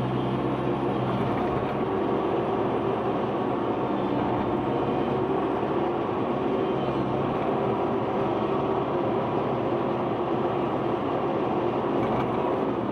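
Excavator's diesel engine running steadily, a constant low drone with no change in pitch.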